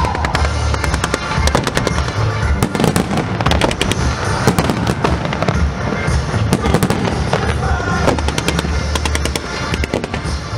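Finale barrage of aerial fireworks: a dense run of sharp bangs and crackles in quick succession over a continuous low rumble, easing slightly near the end.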